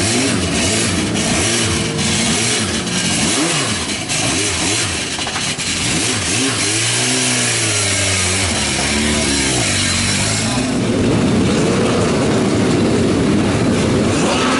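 Several racing motorcycle engines revving, their pitch rising and falling as they accelerate and shift. About ten seconds in, the sound turns into a denser, louder rush.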